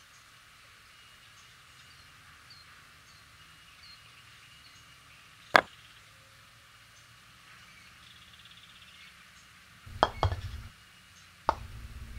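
Croquet mallet striking the ball at a hoop in deliberately faulty shots: a single sharp knock about five and a half seconds in, then two knocks in quick succession about ten seconds in, the mallet hitting the ball twice in a double-tap fault, and another knock about a second and a half later. The last two strikes are each followed by a low rumble.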